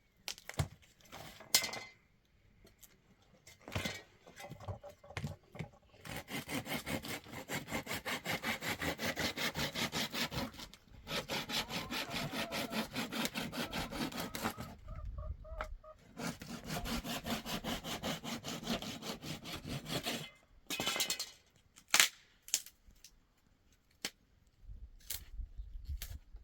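Rapid rhythmic scraping strokes, about five a second, in three bouts with short pauses between them, followed by a few sharp knocks near the end.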